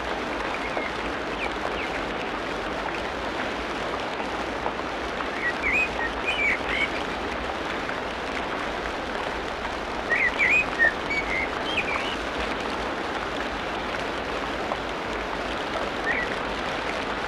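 Tropical rainforest ambience: a steady hiss of rain, with birds calling in two short bouts of high chirps and whistles, about six and eleven seconds in, and one brief call near the end.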